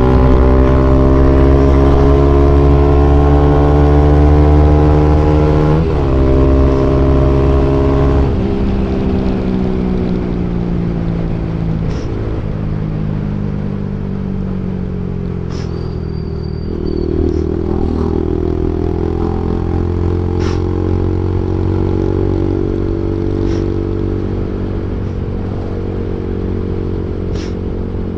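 Bajaj Pulsar NS200 single-cylinder engine running through an aftermarket Akrapovic exhaust while riding: the engine note climbs under acceleration with a brief break for a gear change near six seconds in, then drops off when the throttle closes at about eight seconds and settles into steady lower-rev running. A few sharp clicks and clatters come through in the second half.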